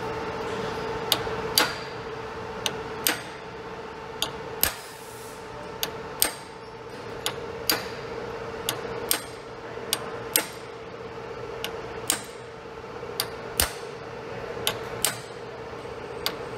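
Hammer tapping a pin punch to drive a brass shear pin, smooth end first, into the hole through a metal lathe's lead screw and drive hub: sharp light taps, often in pairs about half a second apart, over a steady hum.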